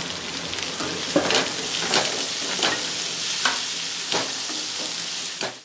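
Sliced onions, tomato and green chilli sizzling in oil in a non-stick kadai, stirred with a scrape or knock about every second. The sound cuts off suddenly at the end.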